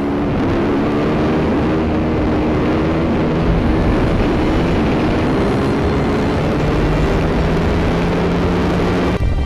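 Yamaha YZ250F single-cylinder four-stroke engine running under way, its note climbing slowly and steadily, with heavy wind rush on the helmet-camera microphone. The sound breaks off just before the end.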